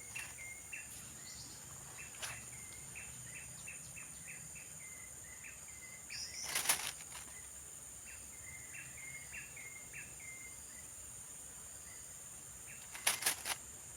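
Outdoor riverside ambience: a steady high-pitched insect drone with runs of short, repeated chirping calls. A few brief knocks break in, the loudest about halfway through and a cluster near the end.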